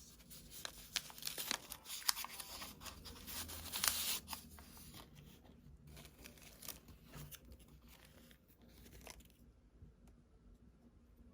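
Crinkling and tearing sounds of something being handled: a dense run of small crackles and clicks, busiest in the first four seconds, that thins out and stops about nine seconds in.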